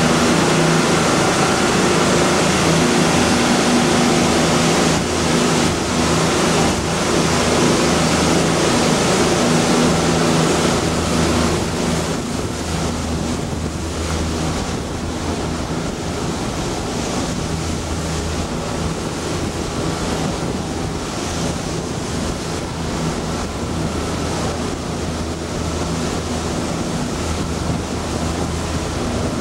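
Boat's engine running steadily under way, with wind buffeting the microphone and water rushing past the hull. It gets a little quieter about twelve seconds in.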